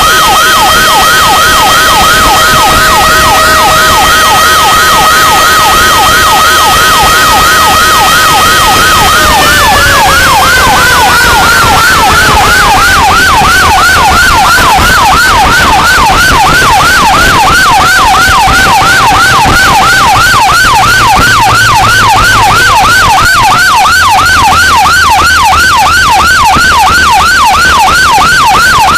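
Fire truck sirens, very loud: an electronic yelp sweeping rapidly up and down, over a steady siren tone that falls in pitch about a third of the way in, holds low, and starts to rise again near the end.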